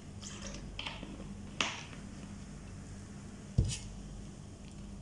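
Food containers and tableware being handled on a table: a few light clicks, a sharp click about a second and a half in, and a louder dull knock a couple of seconds later as something is set down, over a faint steady hum.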